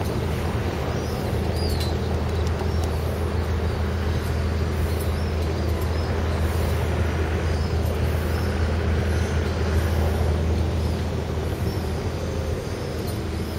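A steady low engine drone with outdoor traffic noise. Faint high bird chirps come now and then.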